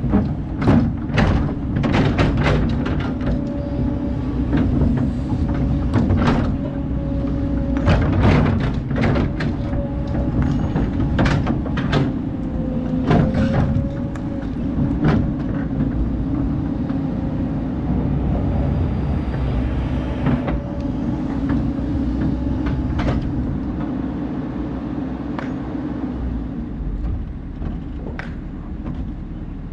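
Kobelco hydraulic excavator's diesel engine running steadily under load while it digs. Frequent sharp clanks and knocks of the steel bucket against sand and rocks are dense in the first half and thin out later. A faint thin whine comes and goes.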